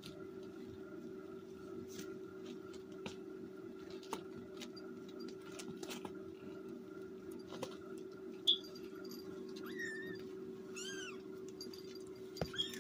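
Very young kittens mewing: about four short, high, squeaky mews in the second half, over a steady low hum and faint small clicks.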